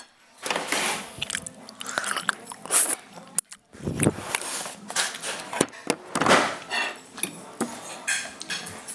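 Chewing and crunching right at the microphone, in irregular bursts, with knocks and clatter from dishes and from the camera being handled; a dull thump about four seconds in.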